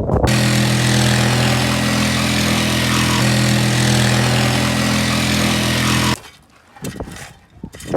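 An engine running steadily at a constant speed, its pitch unchanging, starting abruptly and cutting off about six seconds in.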